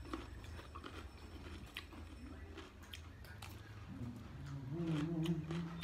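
Crunchy bites and wet chewing of a raw cucumber slice, with small mouth clicks throughout. Near the end a low steady hum comes in for about a second and is the loudest sound.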